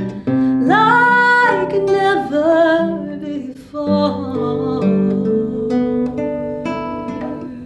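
Acoustic guitar playing the closing passage of a slow ballad, with a sliding, wavering melody line over it about a second in.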